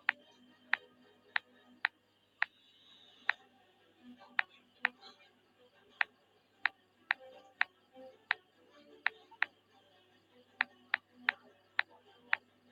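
Sharp clicks or taps at an uneven pace, roughly one to two a second, over faint background music.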